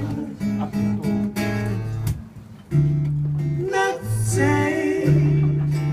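Acoustic guitar playing a song, strummed chords over bass notes that change every second or so.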